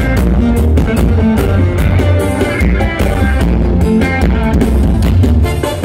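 A live forró band playing loud through a concert sound system, with heavy bass and a steady drumbeat.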